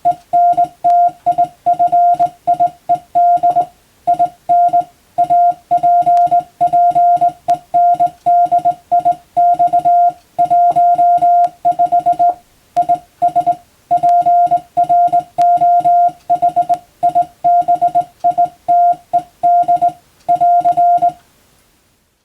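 Morse code (CW) tone of about 700 Hz, keyed on and off in quick dots and dashes, sending European-language telegram practice text. It stops abruptly about 21 seconds in.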